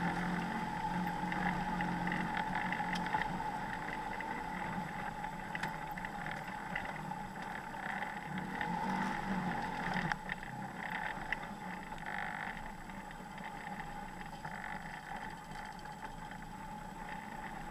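Off-road vehicle's engine running steadily at low trail speed on a rough dirt track, with occasional knocks and rattles from the bumps.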